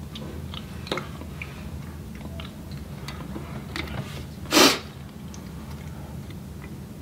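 Close-up eating sounds of someone picking through a seafood boil by hand: small mouth smacks and finger and shell clicks over a steady low hum. About four and a half seconds in comes one short, loud hissing burst, the loudest sound.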